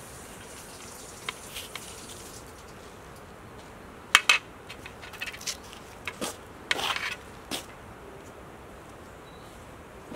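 Flat metal kebab skewers clinking and scraping against an aluminium serving tray as grilled tomatoes, eggplants and potatoes are pushed off them: two sharp clinks about four seconds in, a few lighter clicks, then a longer scraping rattle around seven seconds.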